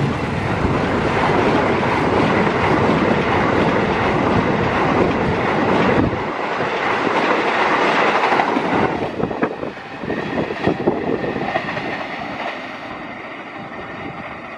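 Argo Bromo Anggrek express passenger train passing close by at about 120 km/h: a loud, dense rush of wheels on rail as the coaches go past, with a few sharp wheel clicks about ten seconds in. The sound then fades steadily as the train moves away.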